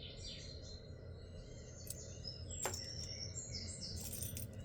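Faint clinks and tinkles of small metal jewelry, hoop earrings and chains, being handled and sorted by hand, with a couple of sharper clicks.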